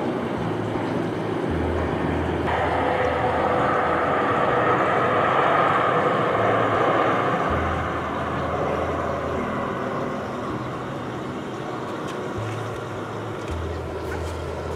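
Airbus A380's four Engine Alliance GP7200 turbofans on short final, a steady jet rumble and hiss that swells to its loudest about five seconds in and then slowly eases as the aircraft flares over the runway.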